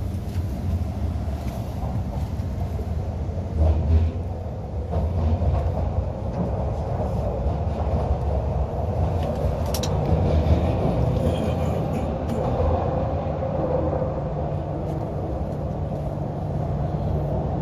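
Steady rumble of a Hyundai Rotem Q-Train metro carriage in motion, heard from inside the car: wheels and running gear on the track, with a brief louder bump about four seconds in.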